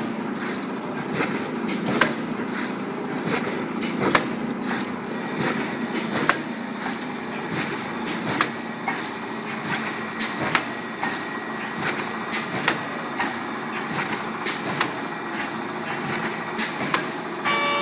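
CBP260 aluminium-PVC blister packing machine running: a steady mechanical din with a sharp clack about every two seconds, lighter clicks between, and a thin steady high whine.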